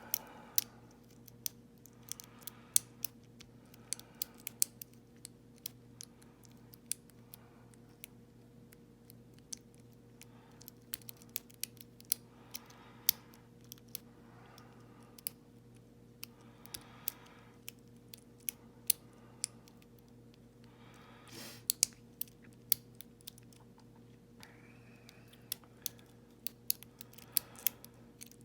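Lock pick raking and lifting the pin stacks of a five-pin ISEO euro cylinder under light tension: irregular small metallic clicks and faint scrapes, several a second.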